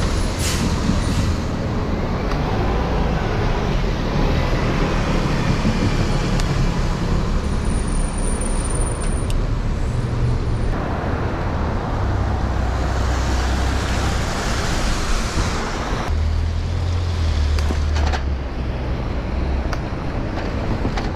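Downtown street traffic: a city bus and cars running alongside on wet pavement, a steady rumble and hiss heard from a moving bike.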